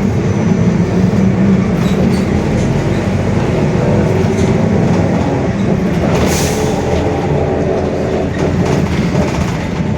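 Mercedes-Benz OF-1721 city bus heard from on board, its diesel engine and drivetrain running under way with a steady low drone. The rear differential is growling, which is the fault the recording is about. A short hiss about six seconds in.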